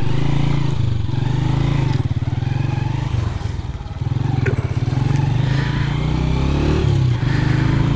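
Motorcycle engine running as it is ridden along, its pitch dipping about halfway through, then climbing steadily as it accelerates, with a brief dip again near the end.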